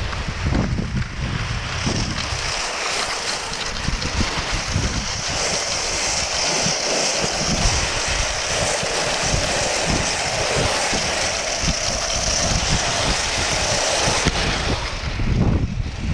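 Rossignol cross-country skis hissing steadily as they are pulled fast over soft snow, with wind buffeting the microphone in gusts.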